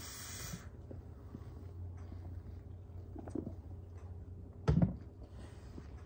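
A single sharp knock, a drink can being set down on a hard surface, over a low steady room hum, with a short hiss at the start and a few faint ticks of handling.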